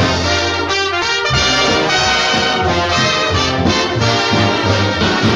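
Orchestral cartoon title-card music, led by brass with trumpets and trombones, playing continuously.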